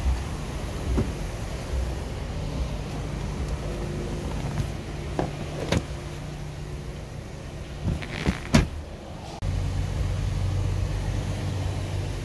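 A car idling steadily with a low hum, with a few sharp clicks and knocks from handling around the body and door. About nine seconds in the sound steps up louder and fuller.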